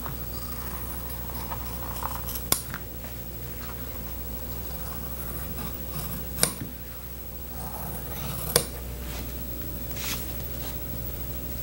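Large shears cutting along a pencil line in a pattern sheet, with several sharp snips as the blades close.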